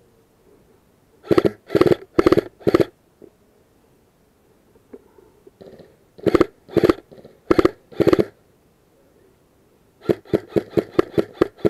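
Airsoft rifle firing close by: four shots about half a second apart, a pause, four more, then a quick string of about eight.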